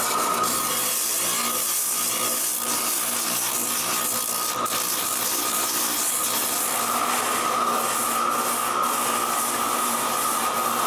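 Electric sander running steadily with a whine, sanding wooden tray frames in final sanding.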